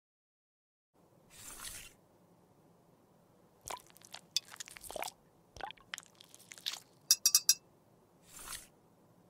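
A metal lipstick tube handled in a glass of water: scattered small clicks and knocks, then a quick run of five sharp clinks against the glass, with a short hissing swish near the start and another near the end.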